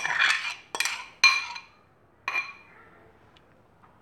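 Glass bowl clinking against a steel mesh strainer as soaked tamarind pulp is tipped and worked into it: three sharp, ringing clinks in the first second and a half, one more a little after two seconds, then a faint rustle of the pulp.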